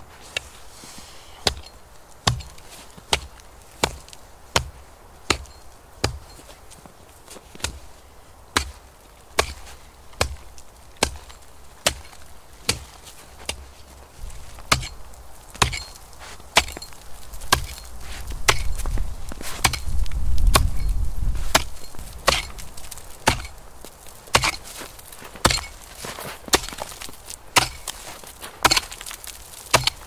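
Wood being chopped with an axe, steady sharp strikes a little more than once a second. A low rumble rises for a few seconds past the middle.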